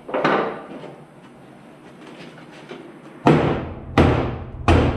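Hammer blows on the steel sheet metal of a 1990 Dodge pickup's wheel well, straightening out buckling. One blow comes just after the start, then from about three seconds in a steady run of heavy knocks, about one every 0.7 seconds, each with a short ring.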